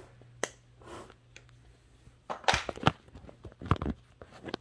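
Handling noises: scattered knocks, clicks and rustles as silicone pop-it fidget toys are moved about in a plastic storage bin, with a short cluster of louder knocks about two and a half seconds in.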